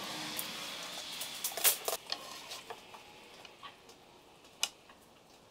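Scattered light clicks and taps of a hand tool and small hardware being handled against the underside of a particleboard shelf. The loudest taps come about a second and a half in and again near five seconds.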